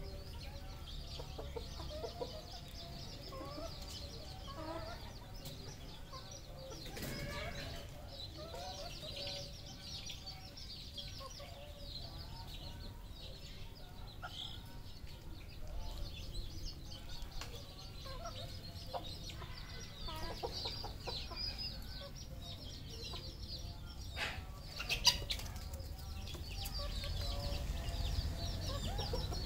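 Red junglefowl clucking and calling, with many short high-pitched chirps throughout and a single sharp knock a few seconds before the end.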